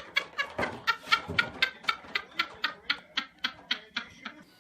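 A cat chewing dry food with crunches about four a second, which stop near the end.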